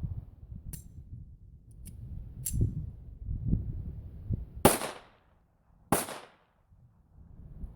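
Smith & Wesson Victory .22 LR pistol firing two loud shots about a second and a quarter apart, past the middle. Three fainter, sharper cracks come earlier.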